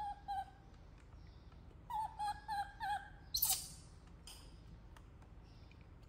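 Short, clear, high-pitched animal calls: two at the start and four more in quick succession about two seconds in, each bending in pitch at its end. A brief sharp rustle or click about three and a half seconds in.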